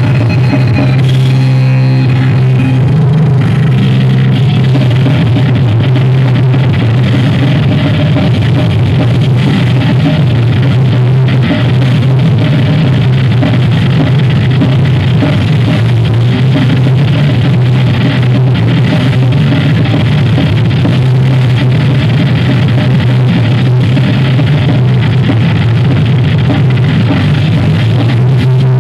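Thrash metal band playing live and loud: distorted electric guitar, bass guitar and drum kit together.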